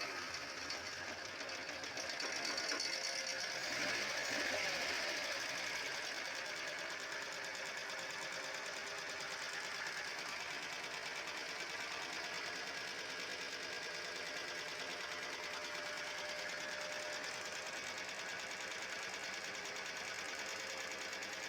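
Ford CHT four-cylinder engine running with a fast, even ticking clatter, the noise being diagnosed. It is a little louder in the first few seconds, then settles to a steady run.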